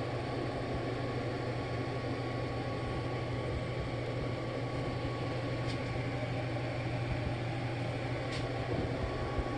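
Steady low hum with an even background hiss, unchanging throughout, with two faint light clicks in the second half.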